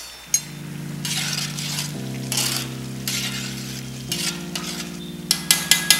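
A slotted metal spatula stirs and scrapes rice cooking in ghee in a copper pan, with a light sizzle. Near the end come several quick clinks of the spatula against the pan.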